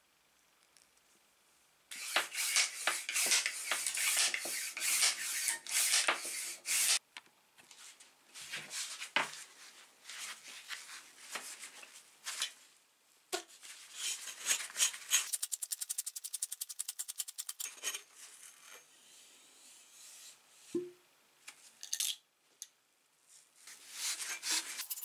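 An old, rusty GRACO hand pump being taken apart by hand: metal parts of the pump click, scrape and rattle, beginning about two seconds in with a dense run of clicks. Later there is a fast, even run of clicks and a short squeak as the barrel is opened and the plunger rod comes out.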